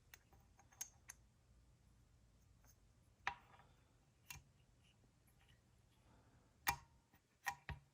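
Light metal clicks and taps, a handful spaced irregularly, from a chainsaw piston and its small parts being handled and fitted onto the connecting rod. Otherwise near silence.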